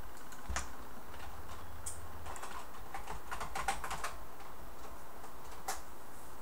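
Typing on a computer keyboard: scattered key clicks with a quick run of keystrokes about three seconds in, as someone searches for something on the computer.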